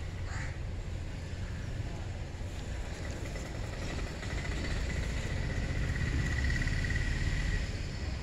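Outdoor ambience: a steady low rumble of wind on the microphone, a short rising call about half a second in, and a thin high tone that swells in the second half.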